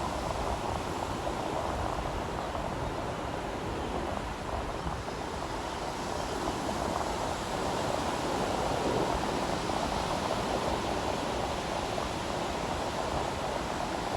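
Surf on a beach: a continuous wash of breaking waves, dipping slightly a few seconds in and swelling again past the middle.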